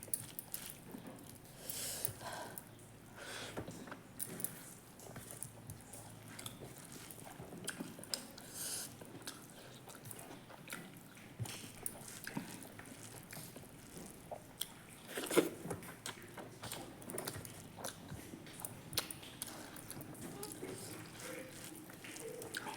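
A person chewing and biting food close to the microphone: irregular small clicks and mouth sounds, with one louder click about fifteen seconds in.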